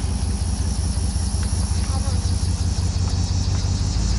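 Pickup truck engine running at a low, steady hum, with a steady hiss over it, heard from inside the cab.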